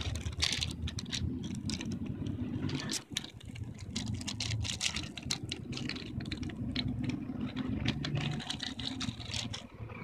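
Steady low rumble of city traffic, with irregular sharp clicks and ticks over it from just after the start until shortly before the end.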